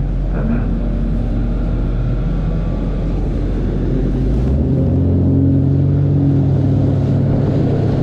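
Outboard motor of an 18-foot Tracker bass boat running fast across open water. About halfway through, the engine note shifts higher and gets a little louder.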